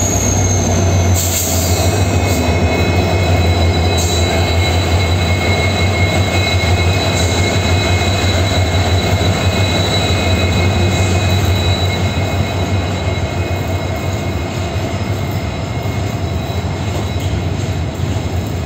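Two WDG4 diesel-electric locomotives in multiple pass close by, their two-stroke EMD 710 engines giving a deep, steady drone, with a steady high whine over it. The drone eases after about twelve seconds as loaded freight wagons follow, rolling past with a few sharp clicks from the wheels on the rails.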